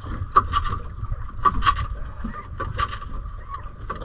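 Wind buffeting the microphone with a steady low rumble, and irregular sharp knocks and slaps of water against a small boat's hull, about six in four seconds, as it rocks on choppy sea.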